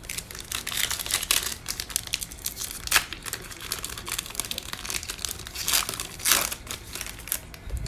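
Plastic trading card pack wrapper being torn open and crinkled: a dense run of irregular crackles, louder in a few sharp rips.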